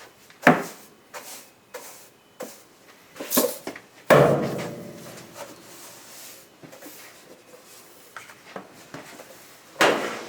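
Scattered knocks and clatters from objects being handled, a few short ones early, a louder bang about four seconds in that rings on briefly, and another knock near the end.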